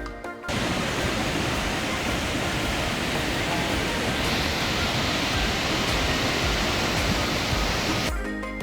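Bharachukki Falls on the Kaveri river: a loud, steady rush of falling water. It cuts in about half a second in and gives way to background music near the end.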